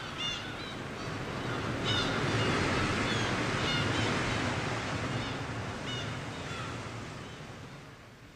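Theatre audience applauding, swelling about two seconds in and dying away near the end, with a few short high calls above the clapping.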